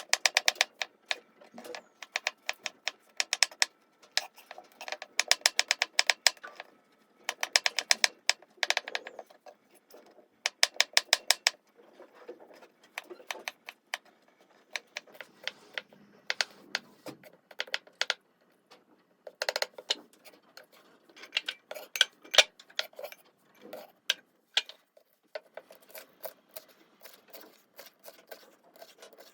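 A kitchen utensil striking rapidly in bursts of quick, even clicks, several a second, with short pauses between bursts: food being prepared.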